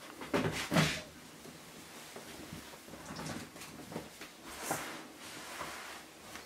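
Two sharp knocks about half a second apart near the start, then light rustling and scattered faint clicks as a wet cat is let out of a bath towel and moves about on a tiled floor.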